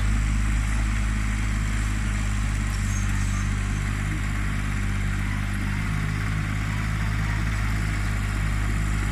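Old backhoe loader's diesel engine running steadily with a low, even hum while it pushes and levels soil with its front bucket.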